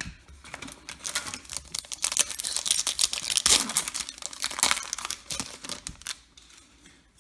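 A foil baseball card pack wrapper being torn open and crinkled by hand: a dense crackle that fades out about a second before the end.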